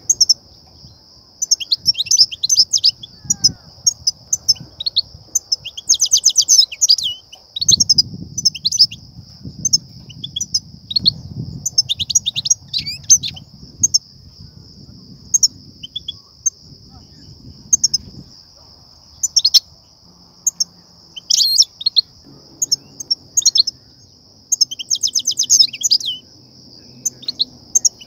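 European goldfinch giving bursts of short twittering chirps and a couple of rapid chattering trills, about six seconds in and again near the end. This is the excited call that trappers play to stir up and lure goldfinches. A steady high hiss runs beneath it.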